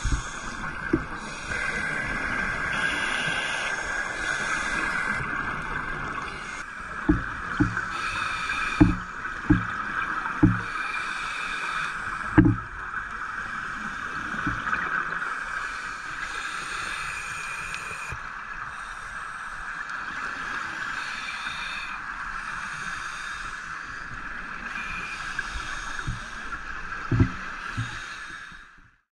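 Underwater sound of a scuba diver's breathing through a regulator: a steady hiss with bursts of exhaled bubbles every couple of seconds. A few short dull knocks come in a cluster about a third of the way in and again near the end.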